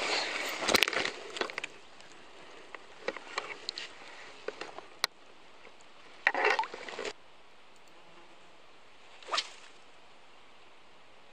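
Water sloshing and splashing as a landing net is worked in the lake shallows, loudest in the first two seconds, then a few brief splashes.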